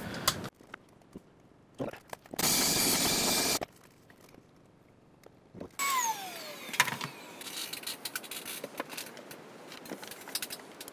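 A machine runs loudly and steadily for just over a second. Later a vacuum cleaner's motor winds down with a falling whine after being switched off, followed by light clicks and rustling as the hose is handled, clearing drill shavings from the cabinet.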